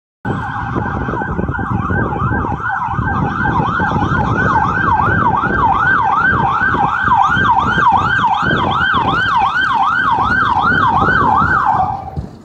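Fire engine siren in fast yelp mode, rising and falling about two and a half times a second over the truck's engine rumble. It grows louder as the truck approaches and cuts off just before the end.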